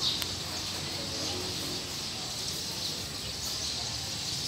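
Steady open-air background noise with small birds chirping now and then and a faint murmur of voices.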